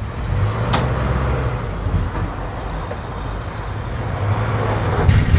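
Semi-truck's diesel engine running with a steady low rumble as the rig tries to work free of the curb island it is stuck on. The engine gets louder near the end. There is one short, sharp hiss-like sound about a second in.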